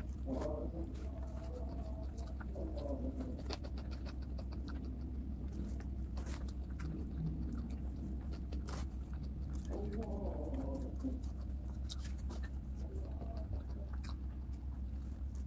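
Eating by hand from a paper-and-banana-leaf food wrapper: small clicks and rustles as fingers gather rice and meat, with chewing, over a steady low hum.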